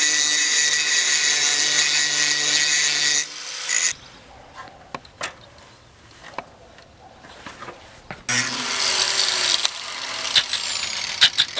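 Angle grinder running against steel on the trailer hinges: a loud run of about three seconds, a quieter stretch of scattered clicks and knocks, then a second run from about eight seconds in, its pitch slowly falling as it winds down.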